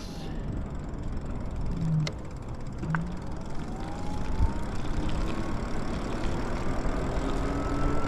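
Electric bike riding on wet pavement: a steady rush of wind and road noise, with a thin motor whine that rises slowly in pitch from about two and a half seconds in as the bike picks up speed.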